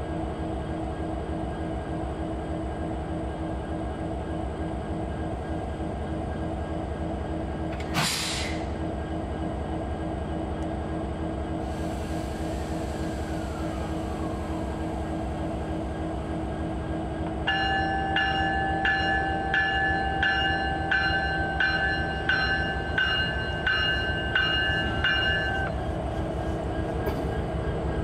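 Norfolk Southern SD60E diesel locomotive idling with a steady hum. A short sharp burst comes about eight seconds in, and a hiss of air starts about four seconds later. Then the locomotive bell rings about a dozen times, three strokes every two seconds, as the locomotive gets ready to move off.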